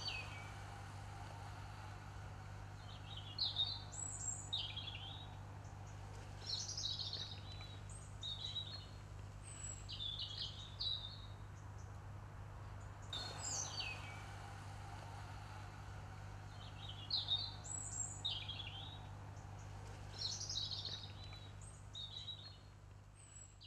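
Small birds chirping in short, separate bursts of calls, a few seconds apart, over a steady low hum. The same sequence of calls starts again about halfway through.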